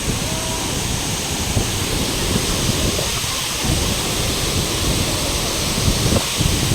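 Close waterfall: a loud, steady rush of falling water, with uneven low rumbling underneath.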